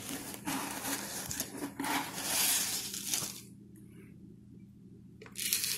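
Dry rolled oats being scooped and poured into a plastic blender cup: a rustling, pattering noise in two stretches, then a short burst near the end.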